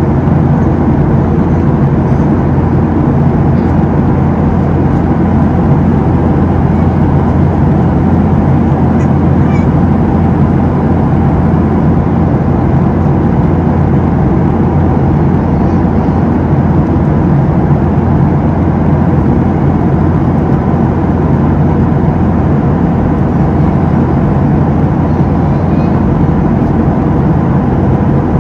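Boeing 737-700's CFM56-7B jet engines heard inside the passenger cabin in flight: a loud, steady drone with a buzzing tone running through it.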